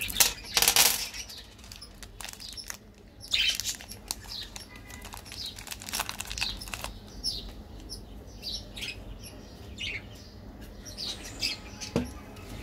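Crinkly plastic lollipop wrapper rustling and tearing as it is pulled open by hand, in a few loud bursts. Short high chirps, typical of birds, sound faintly in the background, and a light tap comes near the end.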